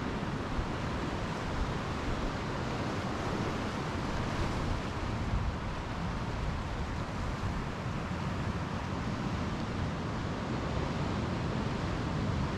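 Steady wash of ocean surf breaking on a sandy beach, mixed with wind, with a low rumble of wind on the microphone.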